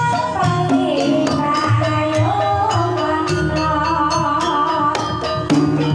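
Female sinden singing a Banyumasan tayub gending in a wavering, ornamented line, over live gamelan. Kendang drum strokes and struck keyed instruments keep a steady beat.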